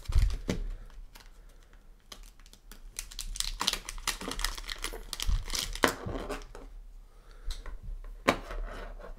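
Crinkling and crackling of a shiny metallized anti-static bag as it is handled and opened, in irregular bursts that are busiest in the middle, with a sharp click near the end.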